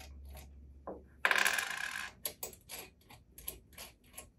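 Small metal nuts being unscrewed from the screws of a stainless pump bracket and handled: a brief rasping noise a little over a second in, then a run of light metallic clicks and taps.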